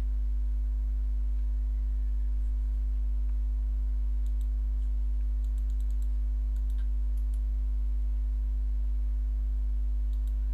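Steady low electrical hum with a stack of higher overtones, the mains hum of the recording setup. A few faint, sharp clicks come in the middle.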